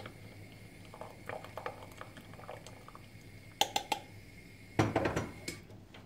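A plastic strainer handled over a funnel and glass jar while a boiled remedy is strained: scattered light clicks and taps, a quick run of sharp clicks about three and a half seconds in, and a short louder rustle about five seconds in.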